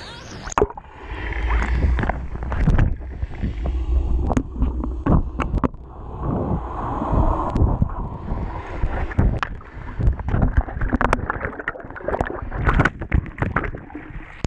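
Water sloshing, gurgling and splashing around a waterproof action camera as it dips below the surface and comes back up, muffled with a low rumble while under water, with many short knocks and splashes.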